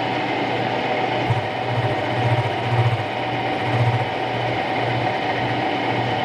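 Vertical milling machine running, its Woodruff keyseat cutter plunging into a new governor cross shaft: a steady motor hum with a low hum that swells and fades in uneven pulses, and one sharp click about a second in.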